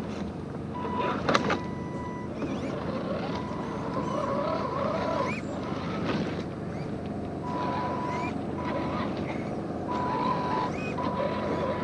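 Electric drive motor of an RC crawler truck whining at one steady pitch in repeated short bursts as the throttle is worked on and off, over a steady background of noise.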